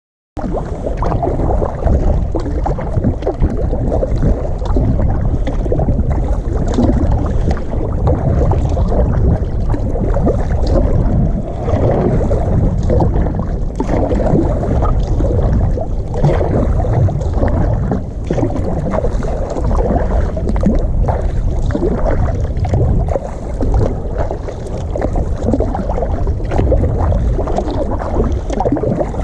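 Kayak being paddled on open water: water splashing and lapping around the paddle and hull, over a steady low rumble of wind on the microphone.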